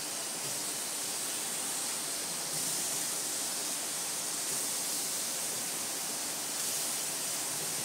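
Peach halves sizzling on a hot gas grill grate, a steady hiss that swells a little as more halves go down. It is the sizzle of a properly hot grill searing the fruit.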